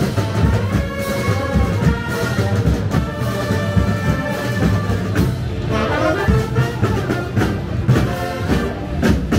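Brass band with drums playing a march: trumpets and trombones over a steady drum beat.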